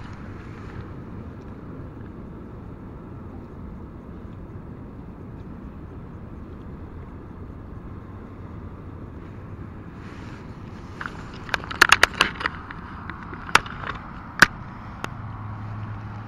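Steady outdoor noise from wind on the microphone. From about eleven seconds in comes a run of sharp clicks and rustles, from handling fishing gear such as the landing net.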